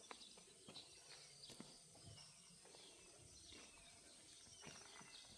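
Near silence: faint outdoor ambience with a few faint, short falling chirps of birds and soft scattered ticks, such as footsteps on a paved path.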